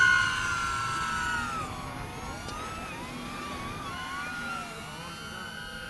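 Motors and propellers of a 5-inch FPV quadcopter whining in flight, overloaded by a 12000 mAh battery. Several whining tones fall in pitch over the first two seconds, then dip and waver against each other as the motors change speed.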